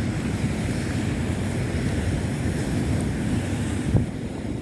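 Big sea waves breaking and rushing up the shore, with wind buffeting the microphone. A short thump about four seconds in.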